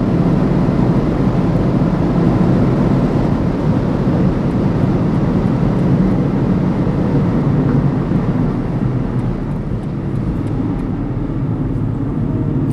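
BMW M135i xDrive driving at speed on the motorway: a steady, dense rush of engine, tyre and wind noise with no revving, getting a little quieter after about eight seconds.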